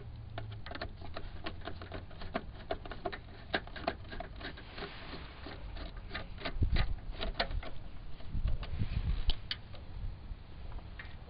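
Phillips screwdriver working a screw out of the headlight surround, a run of small irregular metal and plastic clicks and ticks. Two spells of low rumble come in the second half.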